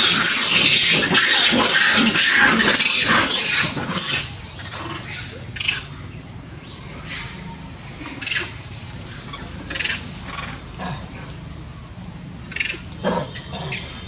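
A troop of long-tailed macaques: a loud dense racket of overlapping calls for about the first four seconds, then quieter, with scattered short high-pitched squeaks and chirps.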